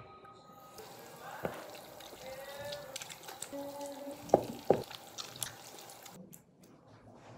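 Water runs from a bathroom mixer tap into the sink while hands are rubbed and rinsed under the stream. There are two sharp smacks a little over four seconds in. The water cuts off about six seconds in.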